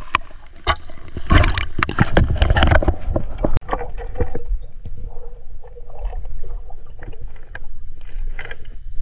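Water sloshing and splashing, with irregular knocks and clicks, busiest in the first few seconds.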